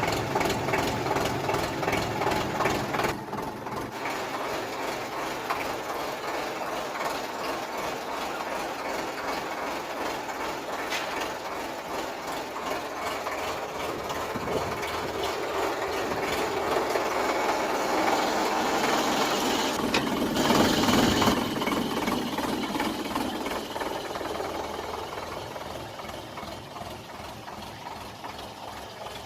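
Indo Farm tractor's diesel engine running with a rapid knocking beat, growing louder toward about twenty seconds in and then easing off.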